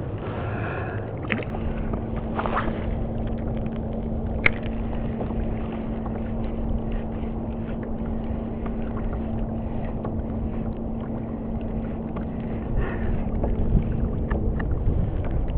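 Kayak's electric trolling motor running with a steady hum, starting about a second and a half in and cutting off just before the end, over a steady low rumble of wind and water. A few light clicks in the first few seconds.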